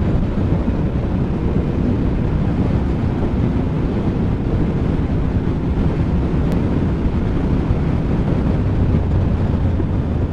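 Motorcycle riding at road speed: steady wind rushing over the microphone, with the bike's engine running underneath.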